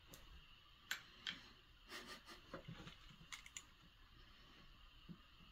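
A dog shifting about on a blanket-covered couch: faint scattered clicks and soft rustles, with two sharper clicks about a second in and a cluster of small clicks a little later.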